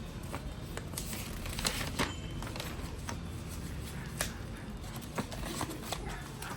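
Packaging being handled during an unboxing: scattered clicks, taps and crinkling of cardboard and plastic over a steady low background rumble.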